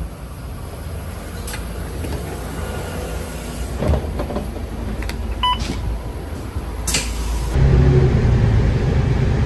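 Steady low rumble of a vehicle with a few knocks and a very short electronic beep about halfway through. A low engine hum grows louder near the end.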